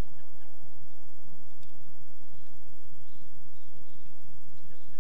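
Steady low outdoor rumble with a few faint, short high chirps of small birds scattered through it.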